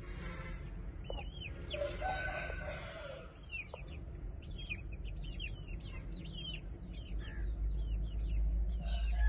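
Aseel rooster giving one brief call about two seconds in, over repeated short high chirps of small birds. A low rumble grows louder near the end.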